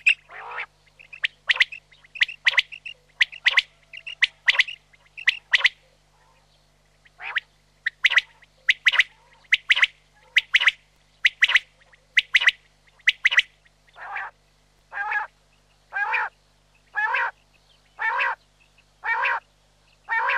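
Common quail calling: a run of short, sharp call notes about two a second, broken by a short pause. From about two-thirds of the way in come lower, longer calls, about one a second.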